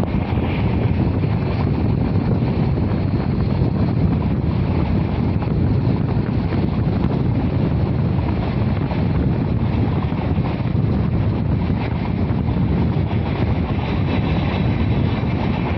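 Wind buffeting the microphone over the steady low rumble of a passenger train running at speed, heard from on board.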